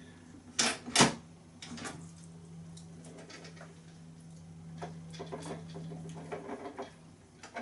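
Ninja Foodi pressure-cooker lid being unlocked and lifted off once the pressure has dropped: two sharp clicks about a second in, then light knocks and clatters as the lid is handled. A steady low hum runs underneath and stops near the end.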